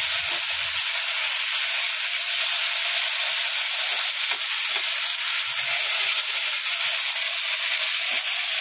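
Masala-coated Indian mackerel (bangada) shallow-frying in a little oil in a pan: a steady, even sizzle.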